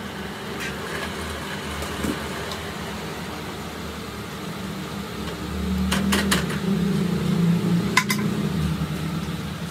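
A steady low mechanical hum from a running machine, louder in the second half, with a few sharp metallic clicks as the clutch disc and rivets are handled.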